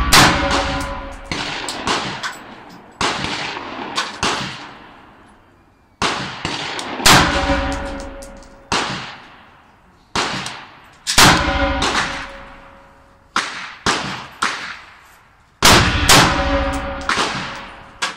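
Semi-automatic AR-15-style rifle fired shot after shot from a bench: about twenty sharp reports, roughly one a second in uneven bunches, each followed by a ringing, echoing tail.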